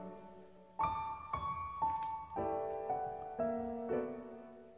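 Slow, gentle solo piano music: notes and chords struck about every half second, each dying away, the last one fading out near the end.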